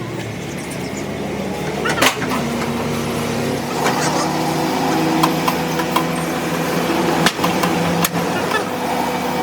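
A motor running with a steady hum of several tones, rising in level over the first two seconds, with sharp knocks about two, seven and eight seconds in.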